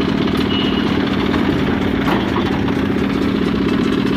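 Engine of a construction machine running steadily at idle with an even, fast chug. A brief high-pitched squeak comes about half a second in.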